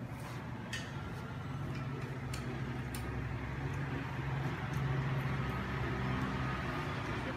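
A steady low mechanical hum that swells through the middle, with a few light clicks of small metal door-handle parts being handled.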